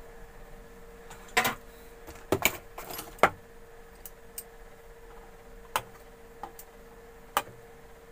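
Metal hand tools being handled on a workbench: scattered metallic clicks and clinks as the soldering iron is put aside and a pair of side-cutting pliers is picked up, with a cluster of clicks in the first few seconds and single ones later. A faint steady hum runs underneath.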